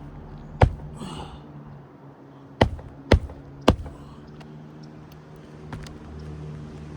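Four sharp hammer blows on a shingle roof: one, then after a pause three in quick succession about half a second apart, over a steady low hum.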